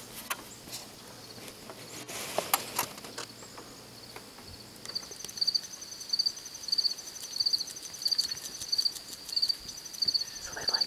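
Scattered clicks and a brief rustle in the first few seconds. Then, from about halfway, a cricket chirps steadily at a high pitch, about one and a half chirps a second.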